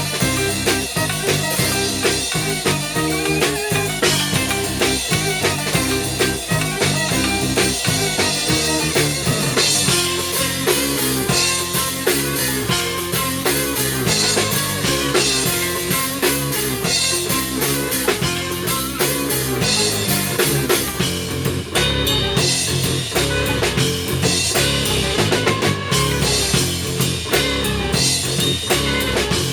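Rock fusion music on Tsugaru shamisen with a drum kit: fast plucked string lines over a steady drum beat.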